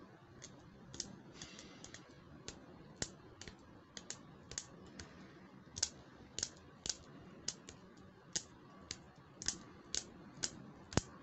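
Fingers and fingernails tapping and clicking on a small hard-plastic butterfly comb, giving faint, irregular sharp clicks at roughly two a second. The loudest click comes near the end.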